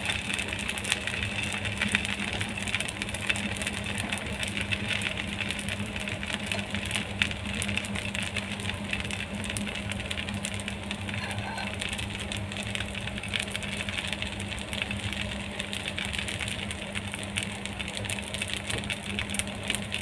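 Semolina batter and oil sizzling on a hot non-stick tawa, a fine steady crackle over a constant low mechanical hum.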